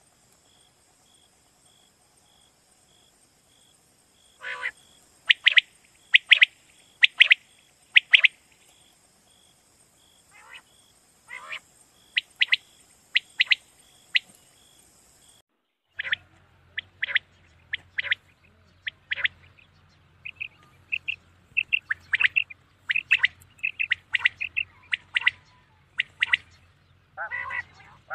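Common quail calling: short, sharp, clipped notes repeated in quick runs, starting a few seconds in after near silence. Partway through the calls come thicker and faster over a low steady hum.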